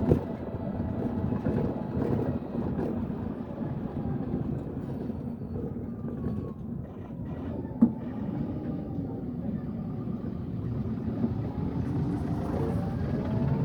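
A motor engine running with a steady low rumble, with one sharp knock about eight seconds in.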